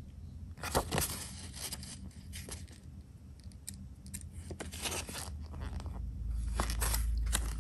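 Paper pages of a small stapled user manual being turned and handled by hand, with short rustles and crackles of paper. A low rumble swells near the end.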